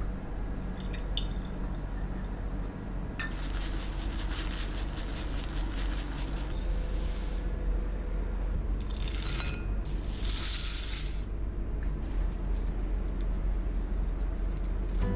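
Dry rolled oats and brown rice flakes poured into a glass bowl: a rattling, hissing pour in several goes, starting about three seconds in and loudest around ten seconds in.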